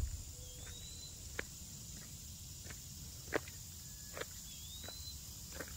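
A few slow, irregular footsteps on gravel over a steady high insect hum. Two short chirps that rise and fall come about half a second in and again near the end.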